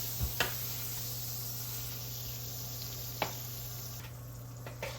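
Butter sizzling as it melts in a hot pot, with a few light knocks and a steady low hum underneath; the sizzle thins out about four seconds in.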